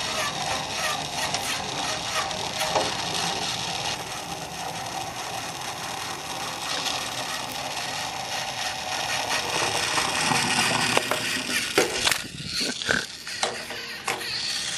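Battery-powered TOMY Trackmaster toy engine running along its plastic track, its small geared motor whirring with a steady run of small clicks. A few louder irregular knocks and bumps come near the end.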